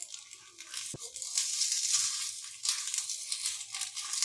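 A fork and a wooden stick scraping against a nonstick appam pan as crisp-bottomed potato-semolina balls are turned over in their cups. There is a sharp knock about a second in, and the scraping is loudest in the middle.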